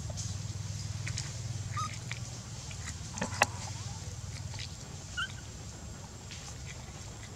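Outdoor ambience: a steady low rumble, light scattered clicks with one sharp click about three and a half seconds in, and two short high chirps.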